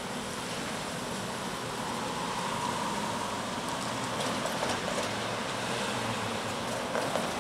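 Cars driving past close by on a wet road, over the rumble of a freight train's boxcars rolling slowly away on the track. A few sharp clacks come near the end.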